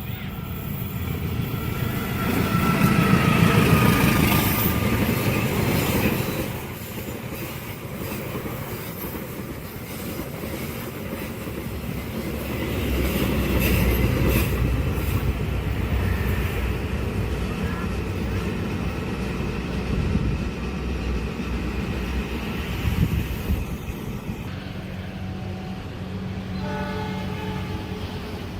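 A train passing on rails, its horn blowing loudest a few seconds in with the pitch dropping slightly, and swelling again around the middle, over the steady rumble and clatter of the cars on the track.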